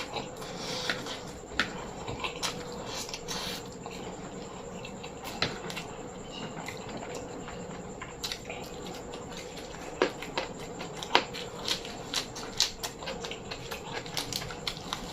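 Close-miked eating: a person chewing and smacking, with irregular sharp clicks and crunches, the sharpest about ten and eleven seconds in.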